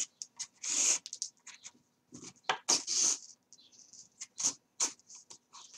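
Thread being drawn through the holes of stacked card pages and pulled taut during coptic-stitch sewing: a series of short scratchy hisses, the longest about a second in and again near the middle, with light rustles and taps of the card.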